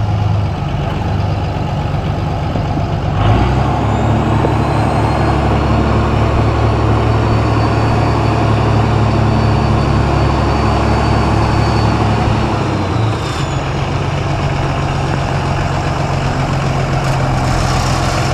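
Oliver 1800 tractor engine running steadily. About three seconds in its speed steps up and holds, with a faint high whine, then drops back to a lower speed about three seconds before the end.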